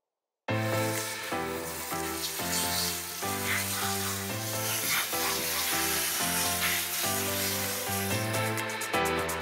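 Water spraying from a pistol-grip hose nozzle into a rough collie's thick, fluffy coat: a steady hiss that starts suddenly about half a second in, heard under background music.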